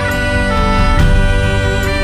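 Background music: sustained notes that step between pitches, with a light beat about once a second.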